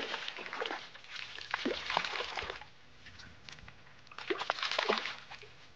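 A hooked fish splashing at the water's surface while being played to the boat, in two bouts: one lasting about two and a half seconds, then a shorter one about four seconds in.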